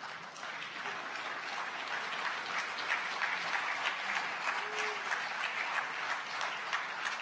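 Church congregation applauding, many hands clapping at a steady level, with a brief cheer near the middle.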